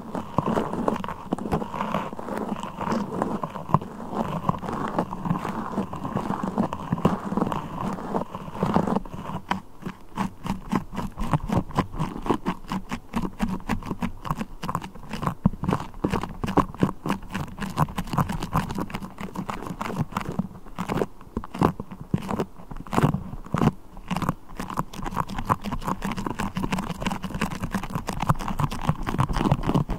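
Beeswax and a sticky crawler toy worked close to the microphone, a dense run of sticky crackles and clicks. The clicks come thicker from about a third of the way in.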